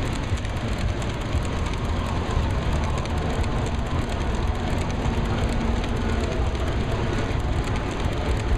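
Large-scale model freight train of loaded hopper cars rolling past close by: a steady rumble with a dense, rapid clicking of wheels on the track.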